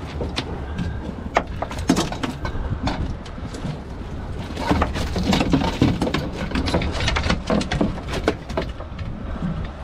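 Irregular knocks, clicks and scrapes as a landed red drum is handled in a landing net on a fiberglass boat deck, busiest from about four and a half to eight and a half seconds in. A steady low rumble of wind and water runs underneath.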